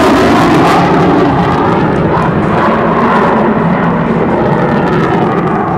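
Loud jet noise from an F-15 Eagle's twin Pratt & Whitney F100 turbofans as the fighter passes and flies away, the hissing top end dulling over the first couple of seconds as it recedes.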